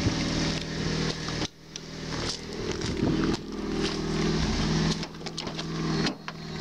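A car engine idling steadily, with clicks and knocks from the phone being handled; the sound drops out abruptly twice.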